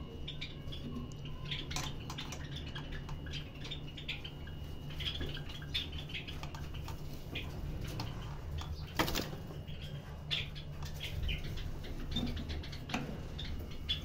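Scattered clicks, scratches and rustling from a wooden nest box on a wire bird cage being handled and opened, its nesting fibre disturbed, with faint bird chirps now and then. One sharper knock comes about nine seconds in.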